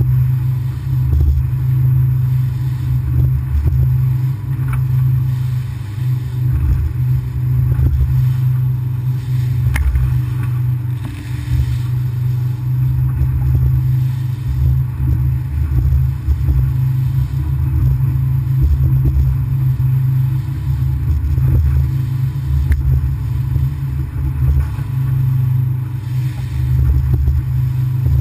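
Outboard motor on a small aluminium boat running fast across chop: a loud, steady low drone with an uneven rumble beneath it as the hull throws spray.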